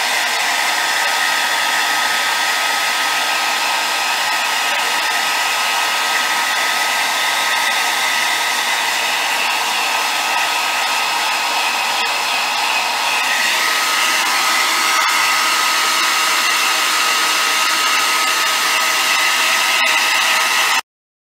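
Handheld hair dryer blowing steadily into a husky's thick coat, a rush of air with a steady thin whine over it. The sound changes slightly and grows a little louder about two-thirds of the way through, then cuts off abruptly just before the end.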